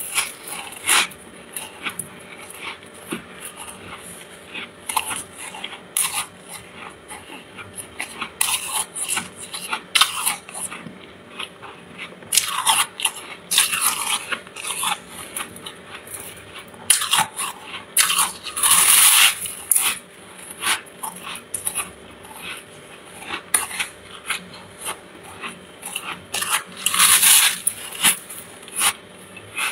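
Freezer frost being bitten and chewed close to the microphone: irregular crisp crunches throughout, with several louder stretches of crunching lasting a second or two each. A faint steady hum runs underneath.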